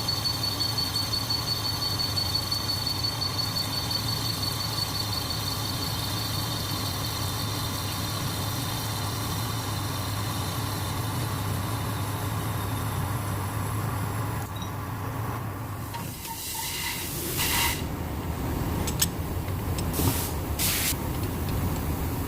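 Metal lathe running as it machines a seal collar: a steady hum with a thin high whine that fades about two-thirds of the way through. Several short hissing bursts follow near the end.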